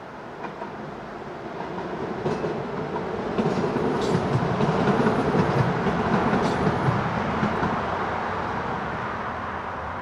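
Aarhus light rail train running on its track, a steady rolling rumble of wheels on rail that swells to its loudest about halfway through and then eases off.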